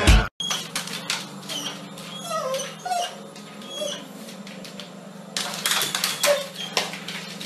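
Dog whimpering in short, high whining cries over a steady low hum, with a flurry of knocks and scrabbling about five and a half seconds in as the dog lunges at a small kitten.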